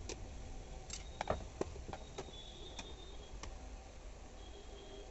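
Screwdriver working the screws out of an Usha Janome Allure sewing machine's plastic housing: a series of light clicks and taps, about eight in the first three and a half seconds, with a few faint high squeaks.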